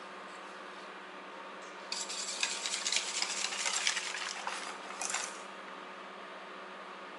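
Wire balloon whisk beating fresh cream and sugar in a stainless steel bowl: fast rattling, scraping strokes of the wires against the metal, starting about two seconds in and stopping after about three and a half seconds.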